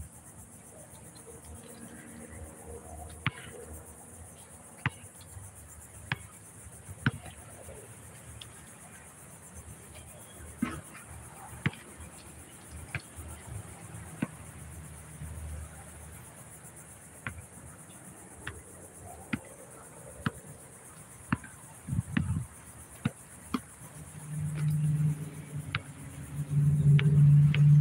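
Basketball bouncing on an outdoor concrete court: sharp, irregular thuds about once a second, over a steady high insect buzz. Near the end a low engine hum comes up and becomes the loudest sound, a motor vehicle passing.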